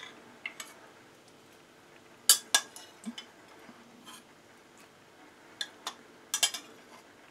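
Metal slotted spoon clinking against a glass jug and a ceramic bowl while soaked mushrooms are scooped out: scattered sharp clinks in small clusters, the loudest about two and a half and six and a half seconds in.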